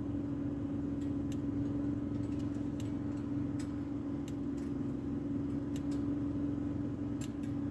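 A motor running steadily with a low hum, with scattered sharp clicks and small knocks over it.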